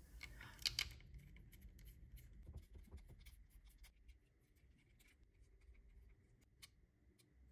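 Faint small clicks and scraping of a hand screwdriver turning screws to fasten a tool holder to a CNC's backplate, fading to near silence after about four seconds.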